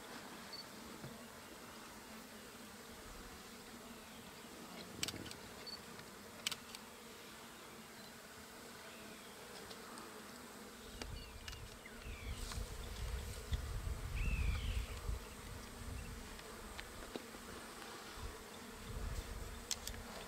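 Flies buzzing steadily around an elephant carcass, with a few sharp clicks about five and six seconds in. In the second half a low, uneven rumble comes in, loudest a little past the middle.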